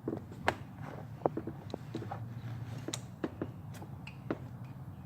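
Scattered light clicks and knocks of metal engine parts and hand tools being handled while a GY6 scooter engine's cylinder head and piston are taken apart, over a low steady hum.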